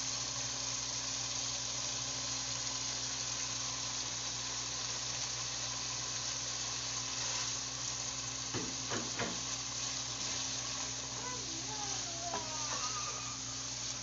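Butter melting and sizzling on chicken masala in a pot over a gas flame, stirred with a wooden spoon. A steady frying hiss, with a few quick knocks of the spoon against the pot a little past halfway.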